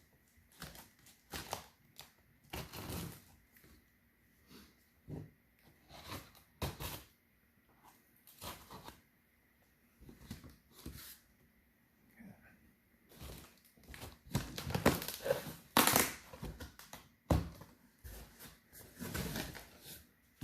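Cardboard shipping box being opened by hand: scattered scrapes, rustles and knocks of cardboard, busier and louder about two-thirds of the way through.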